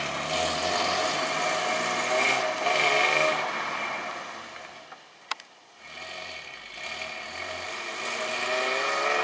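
2000 Nissan Maxima's V6 engine and tyres as the car drives off down a parking lot on a short test drive. It fades as the car moves away and grows louder again near the end as it comes back. There is one sharp click about five seconds in.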